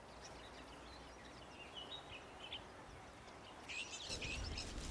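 Faint outdoor ambience with small birds chirping: a few short calls in the first couple of seconds and a busier burst of chirping near the end, as a low rumble comes up underneath.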